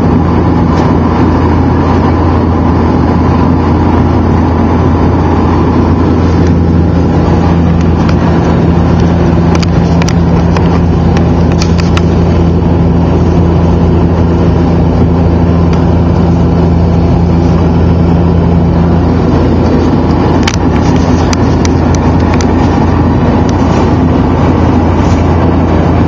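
Turboprop airliner's propellers and engines heard from inside the cabin in flight: a loud, steady low drone, with a higher tone joining it from about six seconds in until about nineteen seconds.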